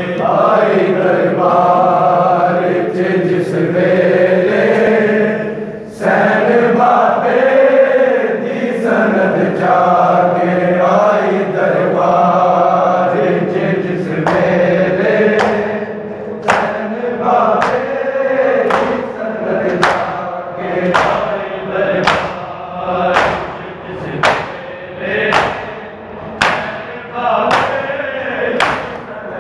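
A group of men chanting a Punjabi noha in unison. From about halfway through, sharp slaps of open hands on bare chests (matam) land about once a second and keep time with the chant.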